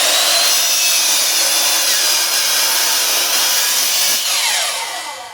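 10-inch compound miter saw running at full speed, cutting through a chunk of firewood. About four seconds in the motor is switched off and winds down with a falling whine.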